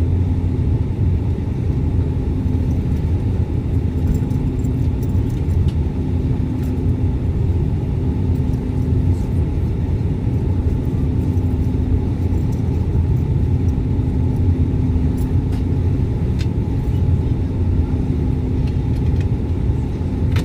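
Propeller airliner's engines and propellers running steadily, heard inside the cabin as a loud, even low drone with a faint hum that comes and goes.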